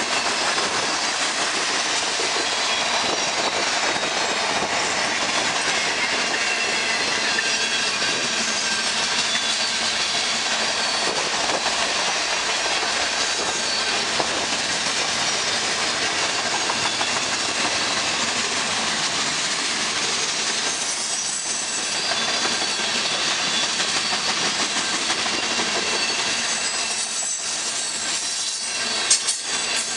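Freight train of tank cars and boxcars rolling past, a steady rush and rattle of steel wheels on the rails. A single sharp knock stands out about a second before the end.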